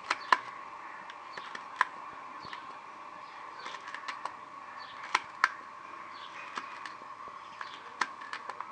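Kitchen knife tapping against a stainless steel plate while green chillies are sliced on it: sharp irregular clicks, a few each second at most, with gaps of a second or more between some of them.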